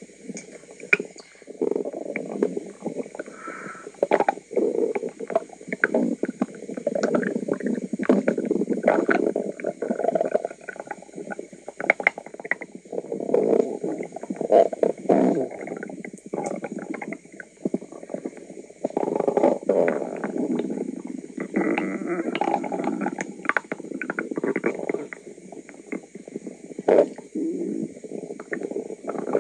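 A person's stomach gurgling and rumbling: a near-continuous run of watery gurgles with short pops mixed in, broken by a few brief lulls.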